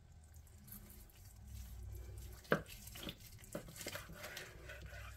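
Knife slicing through a cooked prime rib roast on a wooden cutting board: faint cutting noise with a few sharp taps from about halfway through.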